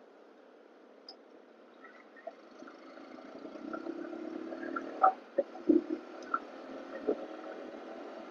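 Faint riding noise from a Yamaha R15M motorcycle on the move: its engine and the road, picked up by a wireless clip-on mic. The noise grows a little louder after about three seconds, with a few soft knocks between about five and seven seconds in.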